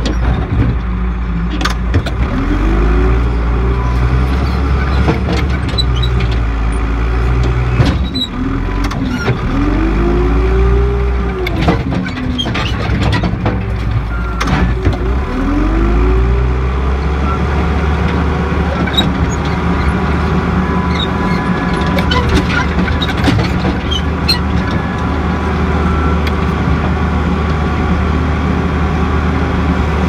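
John Deere 310E backhoe's diesel engine running under working load. Its pitch rises and falls three times in the first half, with scattered knocks.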